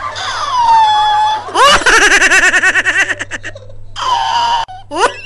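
A small child's high-pitched giggling and squealing: a falling squeal, then a quick run of laughs, then short rising squeals.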